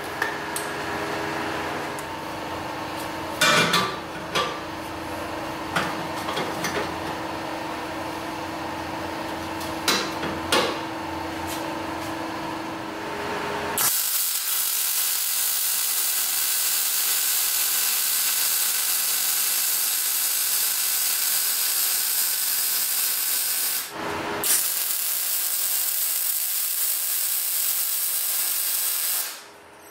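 A steady hum with a few sharp knocks, then a MIG welder running a weld on steel tube: a steady hiss starting about halfway through, a short break, then a few seconds more before it stops near the end.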